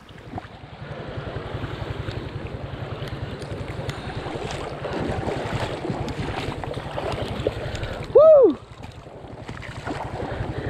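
Shallow stream water splashing and running close to the microphone, with wind rumbling on the microphone. About eight seconds in, a brief loud cry rises and falls in pitch.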